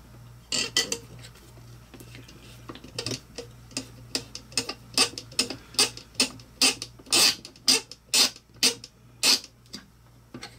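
Screws and a hand tool clicking and scraping against 3D-printed plastic CNC parts as hardware is fitted and tightened: a few scattered clicks, then a steady run of sharp clicks about two a second.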